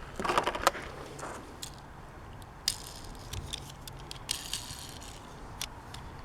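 A plastic toy blister pack and die-cast toy car being handled: scattered light clicks, rattles and crinkles, busiest in the first second or so, then a few separate clicks and short rustles.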